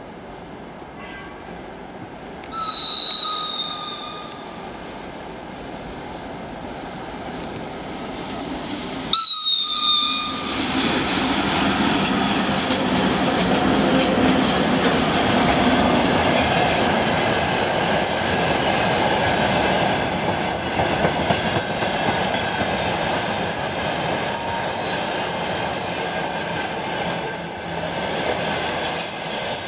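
VL80S electric locomotive sounding two short horn blasts as it approaches, about three seconds in and again near ten seconds. It then passes close and a freight train of hopper wagons rolls by with a steady loud rumble of wheels on rails and some wheel squeal.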